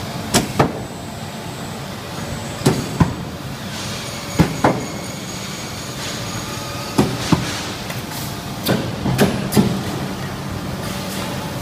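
Automated sheet-metal panel production line running: a steady machine hum with sharp clanks, mostly in pairs, every couple of seconds, as the stations clamp and handle the freezer side panels.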